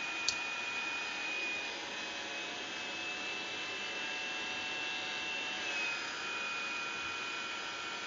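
Hairdryer running steadily, a rush of air with a thin steady whine from its motor, blowing hot air onto a LiPo battery's sticker to soften the glue. The whine dips slightly about six seconds in, and there is one small click just after the start.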